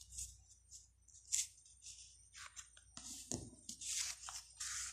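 A sheet of paper rustling and scraping as it is slid and handled by hand, in short, irregular scratchy bursts with a soft thump about three seconds in.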